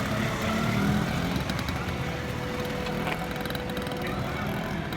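Vespa scooter engine running, with music in the background.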